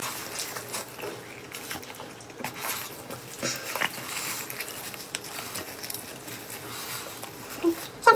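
A person eating spicy softshell turtle, with soft chewing and biting sounds and scattered small wet clicks.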